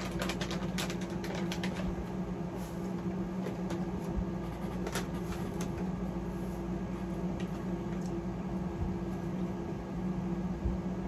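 A steady low hum runs throughout, with scattered crinkles and clicks of a plastic snack packet of beef jerky being handled and opened, busiest in the first second or so.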